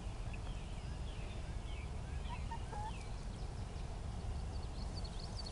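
Pet hens foraging in grass, giving faint short chirping calls and a few soft low clucks about halfway through, over a steady low rumble.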